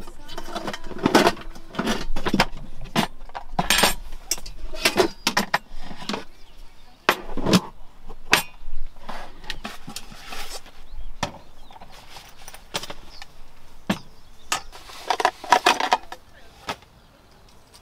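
Camping gear being handled: a run of knocks, clinks and rustling as items are taken out of a plastic storage crate and set down on its wooden lid. Near the end, a small metal camping gas burner is lifted from its plastic case with light metallic clinking.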